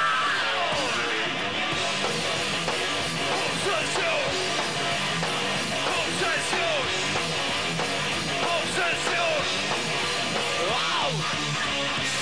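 Heavy metal band playing live, an instrumental stretch: distorted electric guitar lead with many pitch bends over drums and bass.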